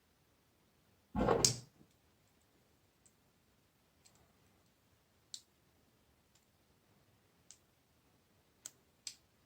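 A dull knock about a second in, then a handful of light, irregular clicks from needle-nose pliers working steel paper-clip wire, straightening out bends.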